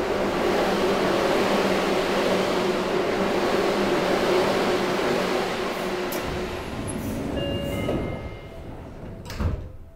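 Train rumble, loud and steady, dying away from about eight seconds in, with a short knock near the end.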